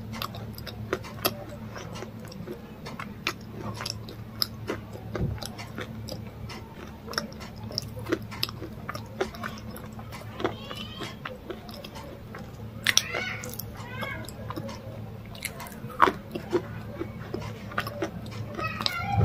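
Close-up chewing and biting of crunchy food: irregular crisp crunches and mouth sounds.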